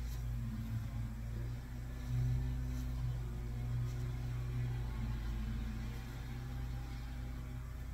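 A steady low mechanical hum, unchanging throughout, with a few faint light clicks.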